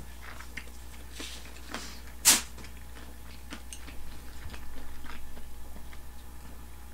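A person chewing a mouthful of fried chicken and rice, close to the microphone, with small clicks throughout. One sharp, loud click comes a little over two seconds in.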